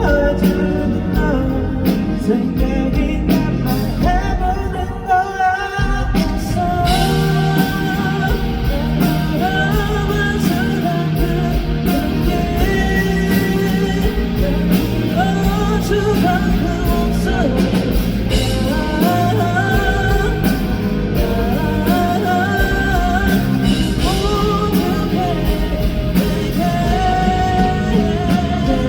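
A live pop-rock band performing a song: a male singer over electric guitar, bass and drums. The band drops back briefly, then comes in fuller about six or seven seconds in.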